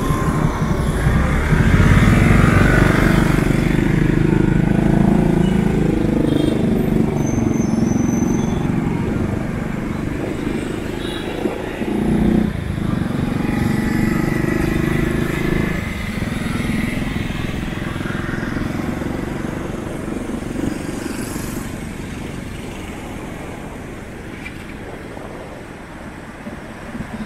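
Motorbike engine pulling away and running through city traffic, close up from the passenger seat. It is loudest in the first few seconds, then eases off and grows quieter after about sixteen seconds.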